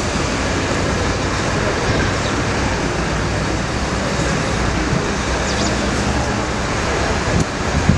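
Steady road traffic noise with a low engine hum running throughout.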